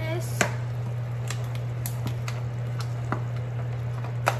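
A pot of water at a rolling boil on a gas stove, under a steady low hum, with a handful of sharp clicks and taps spread through the moment, the loudest near the end.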